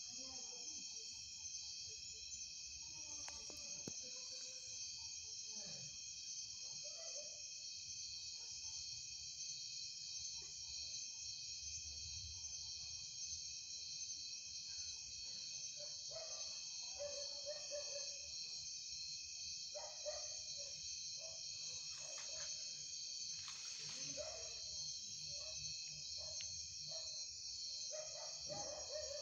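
Steady chorus of night insects such as crickets, a continuous high-pitched trilling that holds unbroken throughout.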